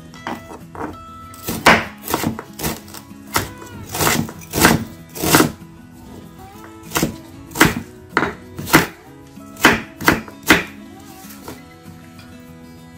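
Kitchen knife cutting slices of galangal into thin strips on a wooden cutting board: a run of irregular sharp knocks of the blade on the board that stops about a second before the end. Soft background music plays underneath.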